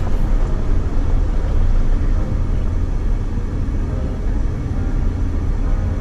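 Jeep driving along at low speed: a steady low rumble of engine and tyres, picked up by a camera mounted on its hood.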